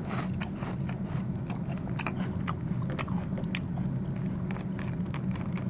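Eating sound effect: crunchy chewing and munching of a crunchy snack, irregular crackly crunches over a steady low hum.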